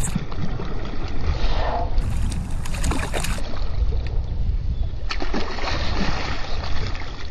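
Hooked bass thrashing and splashing at the water's surface beside a kayak, in several short splashes, over a steady low rumble.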